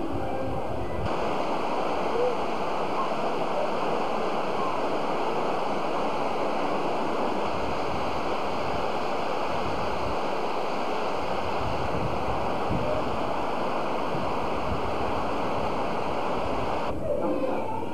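Steady rush of falling water, cutting in abruptly about a second in and stopping just as sharply about a second before the end.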